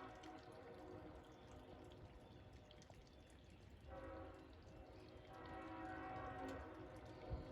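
Diesel freight locomotive's multi-tone air horn sounding faintly in separate blasts: one fading out about a second in, a short blast about four seconds in, then a longer blast, in the long-short-long pattern of a grade-crossing signal.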